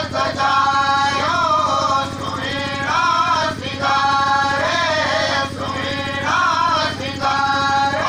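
Unaccompanied solo folk singing: one voice in phrases of about a second, the pitch bending and ornamented, with short breaks between phrases. A steady low hum runs underneath.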